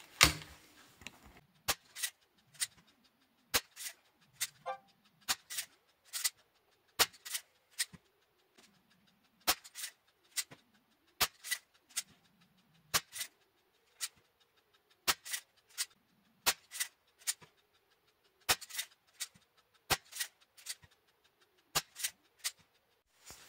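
Feinwerkbau 65 match air pistol being cocked, loaded and fired: a run of sharp clicks and snaps, often in quick pairs or threes with short pauses between.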